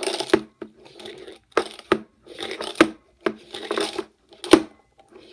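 Jelly beans rattling inside a purple plastic flip-top container as it is shaken to get beans out, with several sharp plastic clicks among bursts of rattling.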